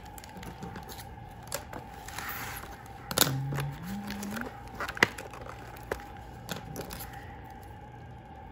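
Scissors and hands working a cardboard doll box and its plastic packaging: scattered sharp snips and clicks, the loudest about five seconds in, with a light plastic crinkle around two seconds. A brief rising voice sound comes just after three seconds.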